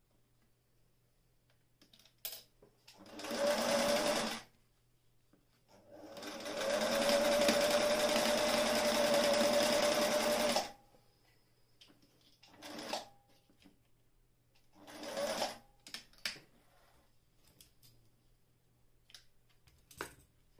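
Singer 457 Stylist zigzag sewing machine stitching in separate runs: a short burst, then a longer run of about four seconds that builds up to a steady pace with a motor whine, then two brief bursts and a few clicks near the end.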